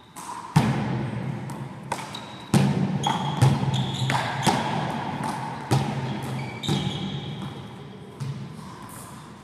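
A one-wall handball rally: the small rubber ball slapped by hand and smacking against the wall and floor, about a dozen sharp hits, each echoing around a large sports hall. Short high squeaks from trainers on the court floor come between the hits.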